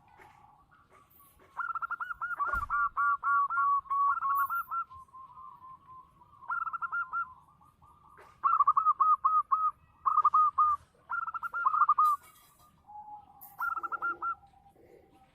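Zebra dove (local perkutut) calling: about six bursts of rapid, staccato cooing notes, with short pauses between the bursts. A steady lower whistle-like tone sounds briefly near the end.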